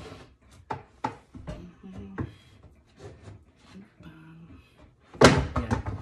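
Wooden shelf board knocking against an under-sink cabinet frame as it is worked back into place: several light knocks, then one loud bang about five seconds in as it seats.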